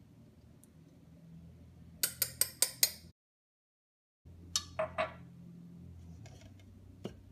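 Metal kitchenware clinking while canned mushrooms are drained through a small metal strainer: a quick run of five sharp metallic taps about two seconds in. After a second of dead silence come a few ringing clinks of the strainer against the glass beneath it, and a single click near the end.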